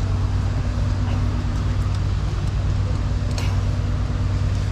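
A vehicle engine idling nearby, a steady low hum, with a faint click about three and a half seconds in.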